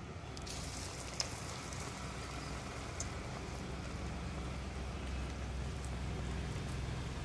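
Chana dal fritters frying in hot oil in a wok: a steady sizzle, with a sharp pop about a second in.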